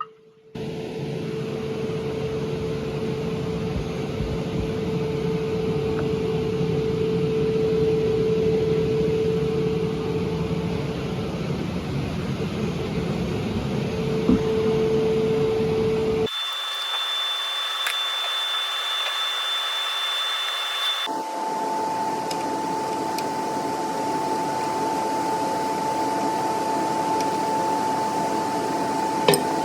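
Steady whirring machine noise with a constant hum. It changes abruptly twice, with the hum jumping to a different pitch each time.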